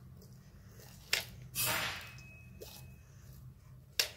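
Slime being squeezed and pulled by hand: a sharp wet pop about a second in, a squishy swish just after, and another sharp pop near the end.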